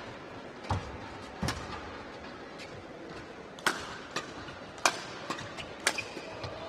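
Badminton rackets striking the shuttlecock back and forth in a singles rally: sharp, crisp hits, the loudest about a second apart in the second half. Two duller knocks come in the first second and a half.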